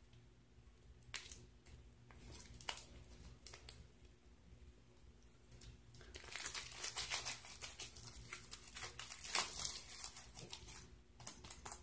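Homemade glue slime being stretched, folded and squished between the hands: faint sticky crackling and popping, sparse at first and becoming denser and louder about halfway through.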